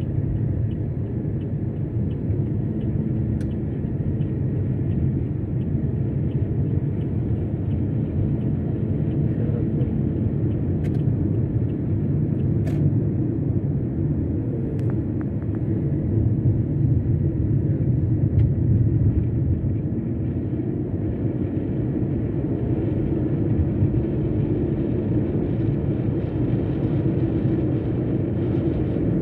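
Steady low rumble of a vehicle on the move, road and engine noise that holds much the same throughout.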